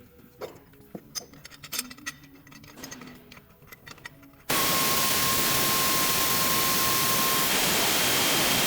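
Faint clicks and taps of small parts and tools being handled. About halfway through, a loud, steady hiss starts abruptly, with a thin whistle-like tone running through it.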